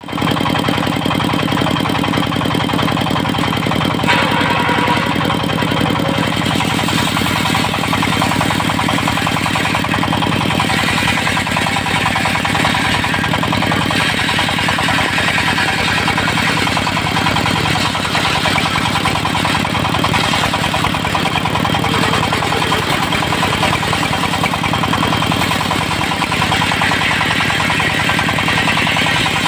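Diesel engine running steadily under load, driving a mobile circular sawmill cutting teak, with the saw's higher cutting noise swelling and easing as it goes.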